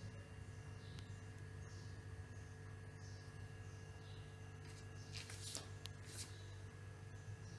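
Quiet room tone with a steady low hum, and a few faint brief rustles about five to six seconds in.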